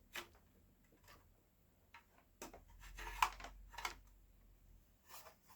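A few scattered clicks and light knocks from the Cabin 1000A slide projector's casing and inner parts being handled as it is taken apart.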